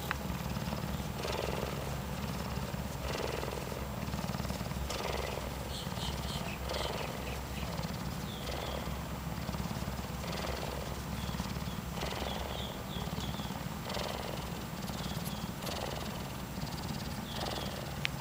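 Cougar purring steadily while it is scratched on the face: a continuous low rumble that swells about every two seconds with its breathing.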